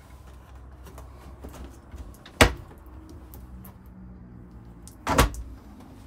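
Dometic RV refrigerator door pulled open with a sharp clack about two and a half seconds in, then shut with a second clack about five seconds in.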